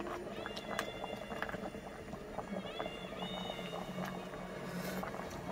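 Noodle broth at a rolling boil in a stainless steel pot, bubbling steadily with many small pops, while a ladle stirs it.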